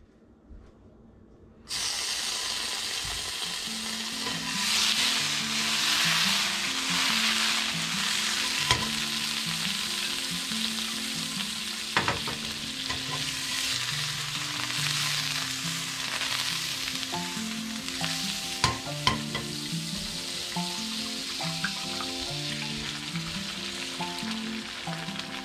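Butter sizzling in a hot nonstick frying pan, starting abruptly about two seconds in as it hits the pan, with a few sharp clicks of wooden chopsticks against a small metal bowl as eggs are beaten. Soft background music plays underneath.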